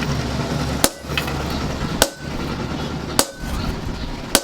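Hand hammer striking steel, four evenly spaced blows about a second apart, each with a short metallic ring, over a steady low hum.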